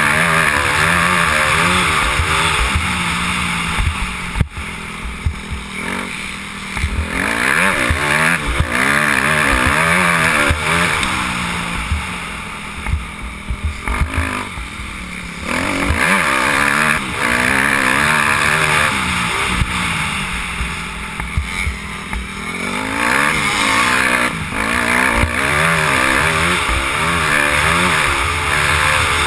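Motocross dirt bike engine, heard from on board while riding, revving up and down again and again as the rider works the throttle and gears around the track. There are several quieter stretches off the throttle.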